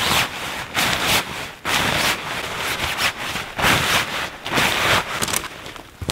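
Tent fabric rustling and crinkling in repeated swishes as it is bundled up and stuffed into its stuff sack.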